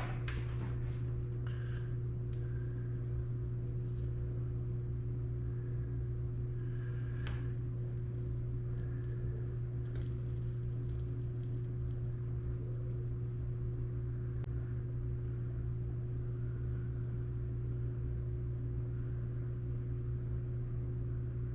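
A steady low hum throughout, with a few faint clicks and soft handling noises.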